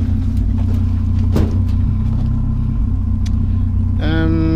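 Vehicle engine idling with a steady low hum, with a few light clicks and knocks. Near the end a higher pitched tone starts and begins to rise.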